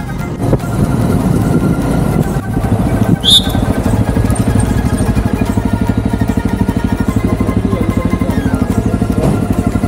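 Motorcycle engine running under way, settling into an even, rapid pulsing beat about four seconds in, with a brief high chirp a little after three seconds.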